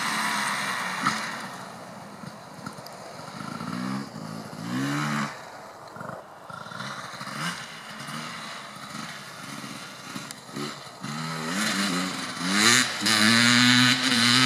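Beta RR 300 two-stroke single-cylinder enduro bike with a full FMF exhaust, revving in repeated bursts, the pitch rising with each twist of the throttle. Fainter through the middle, then louder near the end with several quick revs in a row.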